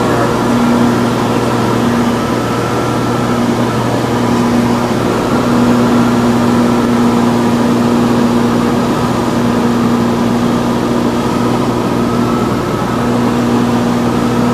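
Cabin drone of a Cessna 414 Chancellor's twin turbocharged six-cylinder piston engines and propellers in flight: a steady loud hum made of several constant tones, one of which fades in and out a few times.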